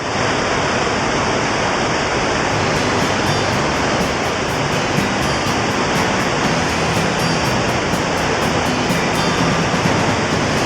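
Rushing water: a loud, steady roar of storm runoff.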